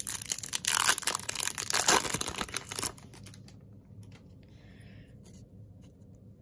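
Wrapper of a 2021 Opening Day baseball card pack being torn open and crinkled by hand for about three seconds. It is followed by fainter rustling as the cards are handled.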